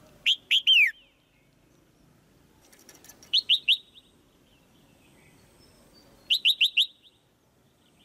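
Red-whiskered bulbul giving three bursts of short, sharp chirping calls: three notes sliding downward near the start, a quick run of three or four notes about three seconds in, and four more about six seconds in.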